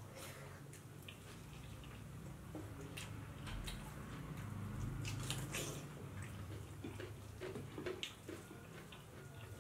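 Eating sounds of two people chewing with their mouths open: scattered wet smacks and clicks, with fingers squishing rice and curry on the plates, over a steady low hum.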